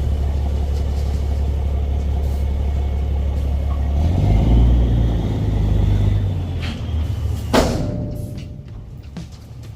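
Engine running steadily with a deep rumble that shifts in pitch about four seconds in, a sharp knock near the end, then dying down.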